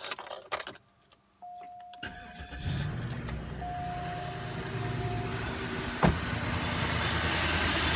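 2005 Cadillac DeVille V8 cranking and starting about two seconds in, then idling roughly with a bad misfire. A few clicks come first, a steady electronic tone sounds twice, and there is one sharp pop about six seconds in.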